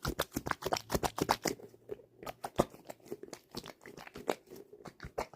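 Squishy toy being squeezed and handled close by, giving quick crackles and crinkles, thickest in the first second and a half and then sparser.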